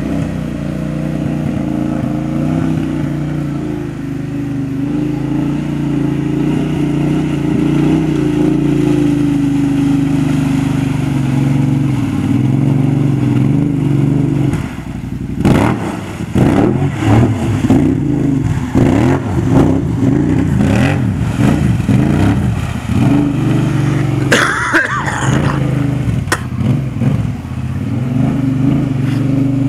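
Kawasaki Brute Force 750 ATV's V-twin engine with a Muzzy exhaust running steadily, then revving in uneven surges from about halfway as its 30-inch Silverback mud tires spin and churn through muddy water, before settling back to steady running near the end.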